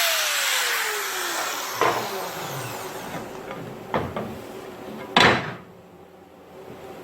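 A power tool switched off and spinning down, its whine falling in pitch as the noise dies away. Then come three separate knocks of tools or metal parts being set down, the last the loudest.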